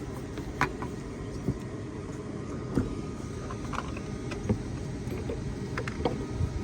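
Scattered light clicks and taps of a door latch bracket and its parts being handled and fitted back in place, over a steady low background rumble.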